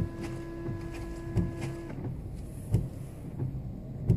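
Windshield washer pump of a 2008 Toyota Corolla whining steadily, then cutting off about two seconds in, while the wipers sweep the glass with a knock about every one and a half seconds as the blades turn, heard from inside the cabin.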